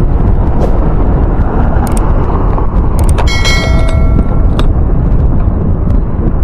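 Steady low rumble of wind on the microphone while riding a bicycle along a street. About three seconds in, a click and a bright ringing chime lasting about a second and a half, the sound effect of an on-screen subscribe-button animation.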